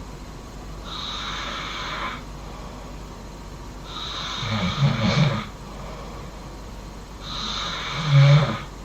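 A sleeping person snoring, with a breath about every three and a half seconds, three in all. Each breath is a hissy rush of air, and the second and third end in a low rattling snore, the last one the loudest.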